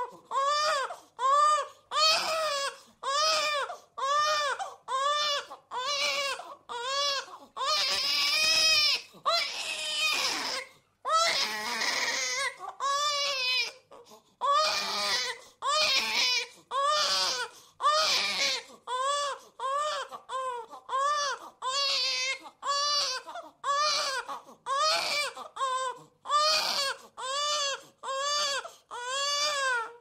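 A baby crying in short, repeated wails, each one rising and falling in pitch, about three every two seconds. About a third of the way in the cries turn into a few longer, harsher wails before the short rhythmic cries return.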